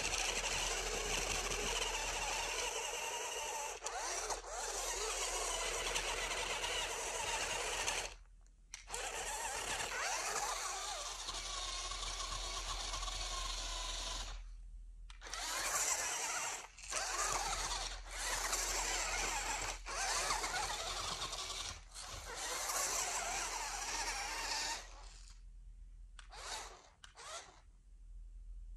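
Toy RC rock crawler's electric motor and gearbox whining under load as it climbs a dirt bank. The whine runs in long stretches, cutting out briefly a few times, and gives way to a few short throttle blips near the end.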